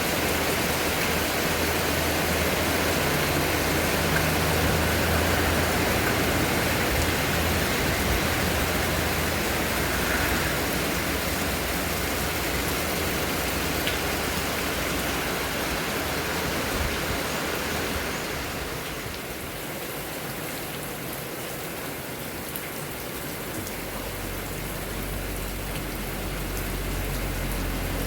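Rain falling in strong wind: a steady rushing hiss that softens about two-thirds of the way through.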